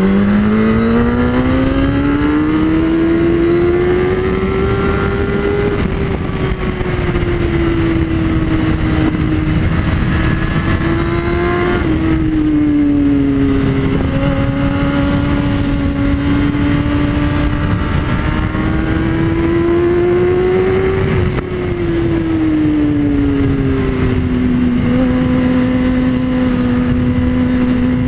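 Sport motorcycle engine at speed heard from on board, its revs climbing steadily over the first several seconds, then holding, dropping a step about halfway, rising again and easing back to a steady pitch near the end, under heavy wind rush on the microphone.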